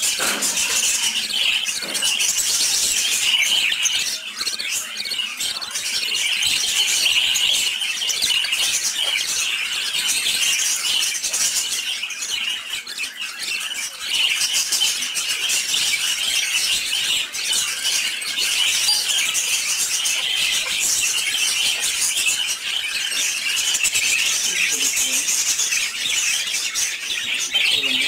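Parakeet nestlings calling without pause in a steady, squeaky, raspy chorus. These are the begging calls of chicks asking the hen for food.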